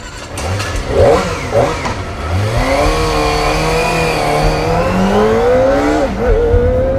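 Kawasaki Ninja ZX-25R's 250 cc inline-four engine revving: two quick blips in the first two seconds, then a long climb in pitch as the bike pulls away. Near six seconds there is a short drop in pitch before it climbs again.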